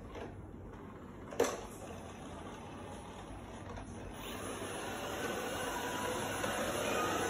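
iLife V55 Pro robot vacuum running, its suction motor and spinning side brushes making a steady whir that grows louder from about four seconds in. A single sharp knock about a second and a half in.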